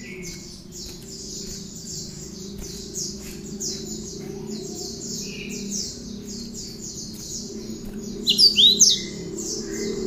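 Cinereous tit (gelatik batu) singing, its song filled with phrases of the bar-winged prinia (ciblek): a steady run of high repeated notes, about three a second, with a louder burst of sharp sweeping notes near the end.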